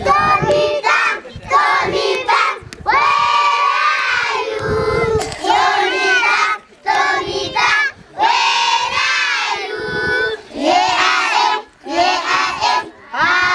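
A group of young children singing together in loud phrases of a second or two, with brief pauses between phrases.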